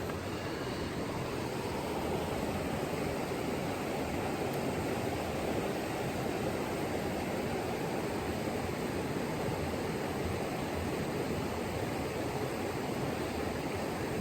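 River water rushing steadily, an even, unbroken sound.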